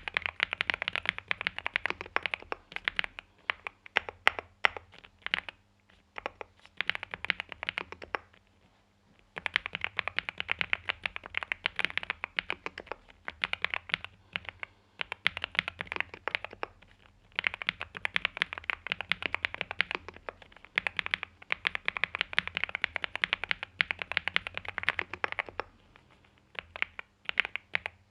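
Typing on a NuPhy Gem80 mechanical keyboard with NuPhy Mint linear switches, an FR4 plate in a silicone-sock gasket mount and mSA double-shot PBT keycaps. Fast runs of keystrokes are broken by short pauses and, a few seconds in, by a stretch of slower, separate key presses.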